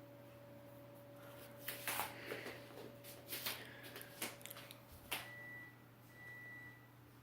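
Faint rustling and clicking handling sounds, then two short high-pitched beeps.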